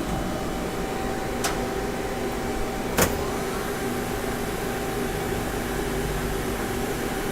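Powered-up CNC lathe humming steadily, with several held tones, while idle. Two short sharp clicks come about one and a half and three seconds in.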